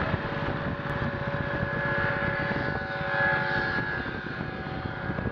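A vehicle running: a steady mechanical drone with a low rumble and a few held tones.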